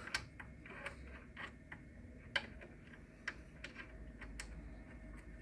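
Faint, irregular clicks and taps of a screwdriver working the screws out of a laser machine's cover panel.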